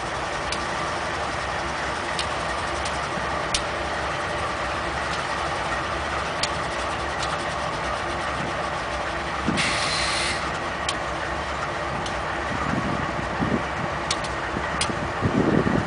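GE Dash 8-40CW and Dash 9-40CW diesel-electric locomotives running with a steady engine hum, with sharp clicks scattered through. A short burst of air hiss comes about ten seconds in. Low uneven rumbles come near the end.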